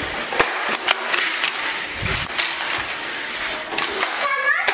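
Noisy rustling and rumbling from a handheld camera being carried quickly, with a few sharp clicks and knocks scattered through it.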